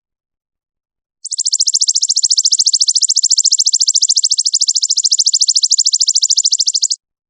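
A songbird's long, rapid trill of evenly spaced high notes, starting about a second in and stopping abruptly near the end, played as a masteran training call for competition songbirds.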